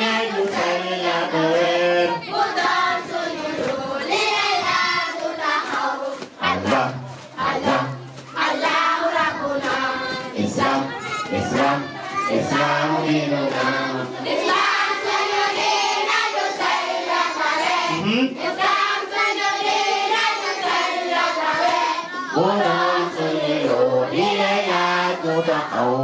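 A group of children singing a chant together in unison, with hand claps here and there.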